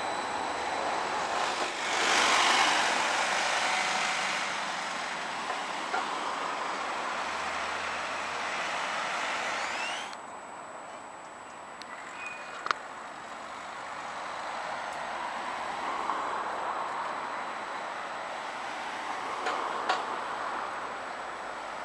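Edinburgh tram, a CAF Urbos 3, running close past, with a rising electric whine as it gathers speed. The sound drops off suddenly about ten seconds in, leaving quieter steady outdoor noise with a couple of sharp clicks.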